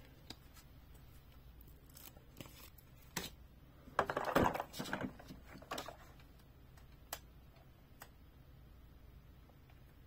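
Hands handling a plastic toy excavator: scattered light plastic clicks and taps, with a brief rustling scrape about four seconds in.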